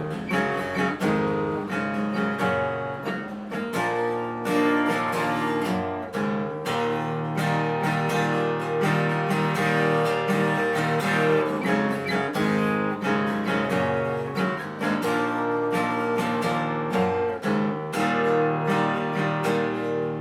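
Steel-string acoustic guitar, a copy of the Taylor 314ce, strummed in a steady rhythm, its chords ringing on between strokes. The strings are tuned down a half step.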